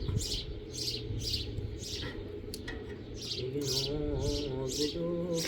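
Small birds chirping over and over, short high chirps a few tenths of a second apart, over a steady low hum. A wavering pitched voice or melody comes in about three and a half seconds in.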